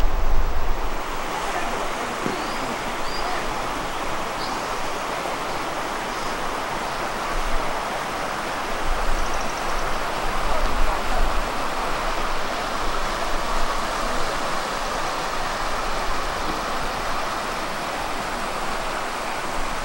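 Steady rush of a mountain stream's flowing water, an even hiss with no change in strength.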